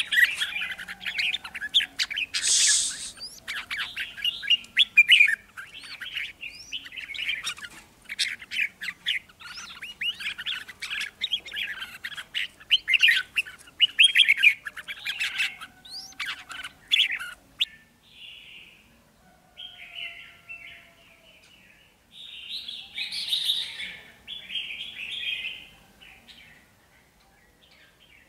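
Caged decoy red-whiskered bulbuls calling and singing: a dense run of rapid, sharp chirps, thinning after about seventeen seconds into separate short warbled phrases.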